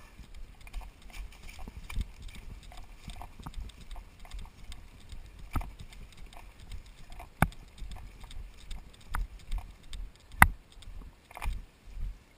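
Footsteps and knocking of a player's gear on the move, a run of irregular low thumps and small clicks. Two sharper, louder clicks stand out, one about seven seconds in and one about ten seconds in.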